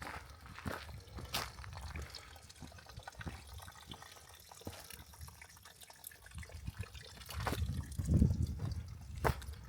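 A small woodland waterfall trickling and dripping, with scattered drips throughout; a louder low rumble rises and fades near the end.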